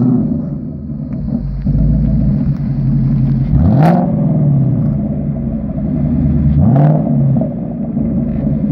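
2015 Mustang GT's 5.0 L V8 through an FRPP Sport cat-back exhaust, running at low rpm with a deep rumble and two quick throttle blips about three seconds apart.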